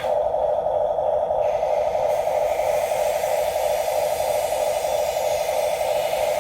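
The small electric drive motors and gearboxes of a Huina 1569 RC bulldozer whining steadily as it drives. A higher hiss joins about a second and a half in.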